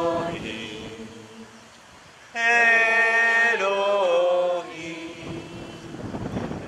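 Choral chanting in long, held, gliding notes. A phrase fades away over the first two seconds, a louder one comes in sharply just over two seconds in and holds for about two seconds, then softer chanting continues.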